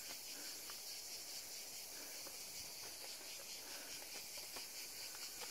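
A faint, steady, high-pitched chorus of cicadas, with a few soft footsteps on the path.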